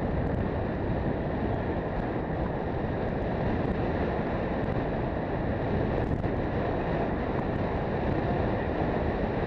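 Steady wind rushing over the microphone of a camera riding on a moving road bicycle.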